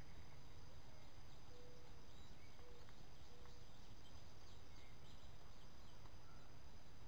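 Evening woodland ambience: a steady chorus of insects, crickets among them, over a low rumble, with a few faint short bird calls.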